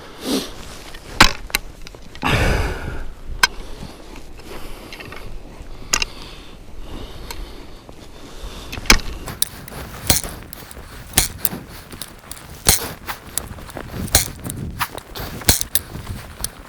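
Steel spud bar (ice chisel) jabbed into the ice again and again, sharp metallic hits at irregular intervals with a longer scrape about two seconds in: the ice is being tested for thickness and safety on first ice while walking out.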